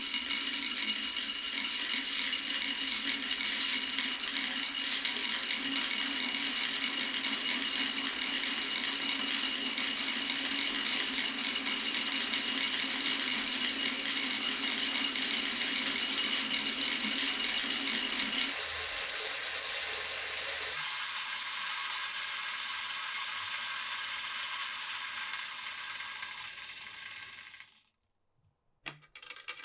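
Glass marbles rolling and clattering continuously along a wooden marble run with clear plastic pipes. The sound changes abruptly twice past the middle, fades near the end and drops to a brief silence before the clatter starts again.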